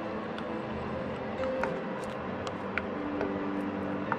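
A few faint scrapes and taps of a silicone spatula against a ceramic bowl and a steel pressure cooker pot as masala is spooned out, over a steady background hum.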